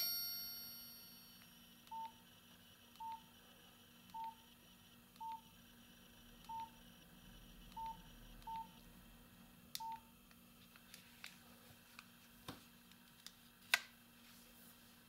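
A ringtone's last note fades away over the first second or so. Then a Nokia 7230's keypad gives eight short single-pitch key beeps, roughly a second apart, and a few faint clicks follow near the end.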